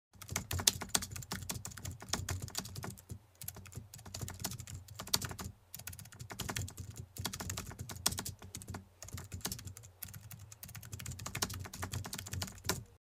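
Keyboard typing: rapid runs of clicking keystrokes with a few brief pauses between runs.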